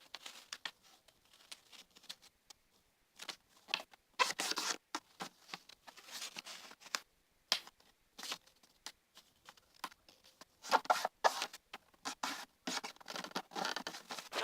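A sheet of A4 paper being handled, turned over and folded: irregular bursts of rustling and crinkling, with short sharp crackles as the folds are pressed down.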